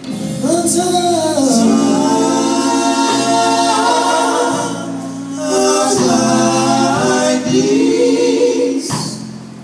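Male gospel vocal group singing in close harmony, holding long chords over two sustained phrases.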